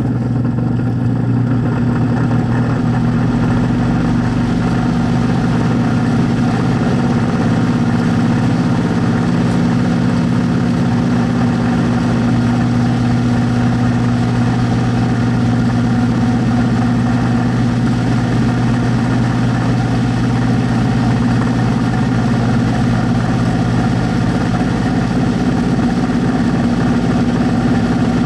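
VIVOSUN 203 CFM 4-inch inline duct fan running steadily, close-miked: a loud, even motor hum under a rush of moving air.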